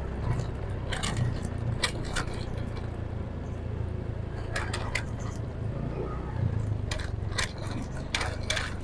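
Motorcycle ridden slowly with its engine a low steady hum. About a dozen sharp metallic clinks and jingles are scattered through, often in quick pairs.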